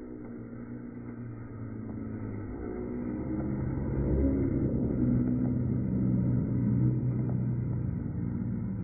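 Dirt jump bike rolling past on packed dirt: a steady buzzing hum that grows louder as it nears, peaks about halfway through, and eases off as it passes.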